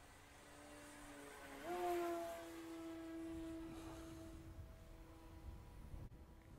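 Electric RC model Cessna 182's brushless motor and propeller humming as it flies, a faint steady tone that steps up in pitch and gets louder a little under two seconds in, then slowly fades away.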